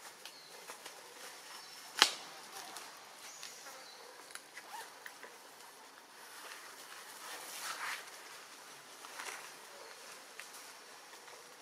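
Quiet outdoor ambience with scattered light ticks and rustles, a sharp click about two seconds in, and a brief swell of hiss near the middle.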